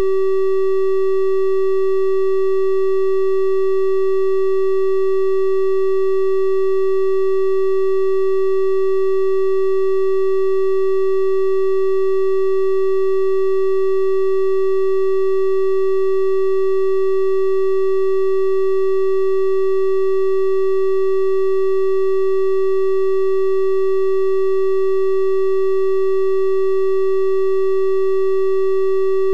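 A steady electronic test tone: a 384 Hz triangle wave held at constant pitch and level, a soft, flute-like hum with faint higher overtones.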